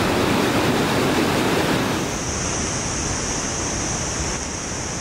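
Steady rush of churning whitewater in a large river rapid. About two seconds in it changes to a thinner, hissier rush at a slightly lower level.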